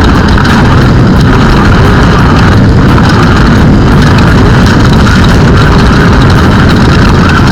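Class 1 off-road race car at speed: the engine running hard under constant rattling and knocking from the rough course, very loud and unbroken.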